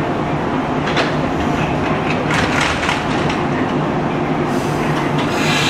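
JR East 115 series electric train standing at the platform with a steady electrical hum and a few clicks. Near the end comes a high hiss of air, then a whine as the train starts to pull away.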